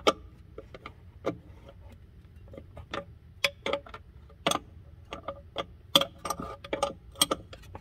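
Ratcheting wrench clicking in short, irregular runs of sharp metallic ticks as it snugs a brass air-line fitting into the top of an air suspension strut.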